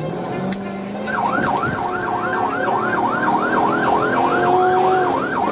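Police car siren in yelp mode: a rapid rising-and-falling wail, about three sweeps a second, starting about a second in.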